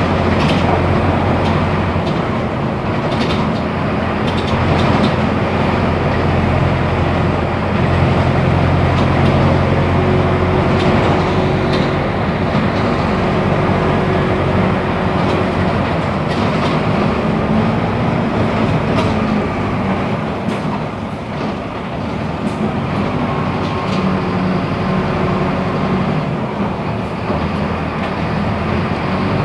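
Mercedes-Benz OF-1418 bus's front-mounted six-cylinder diesel engine running under way, a steady drone with body rattles and clicks over road noise. The engine sound eases and the level dips about twenty seconds in, then picks up again.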